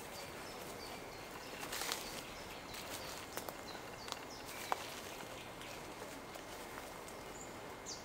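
Nightingale singing sparsely: a few short, high whistled notes in the first second, then scattered sharp clicks, the loudest just past halfway, over a steady background hiss.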